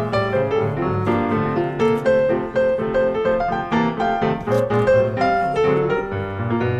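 Background music: a piano piece playing a melody over bass notes.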